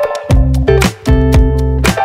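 Instrumental background music: a groove of guitar and bass with a steady beat.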